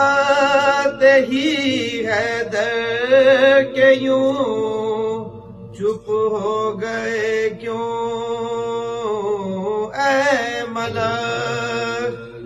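A solo voice chanting an Urdu Muharram elegy (noha) in long, held, ornamented notes with a wavering pitch. The voice breaks off briefly about six and eleven seconds in.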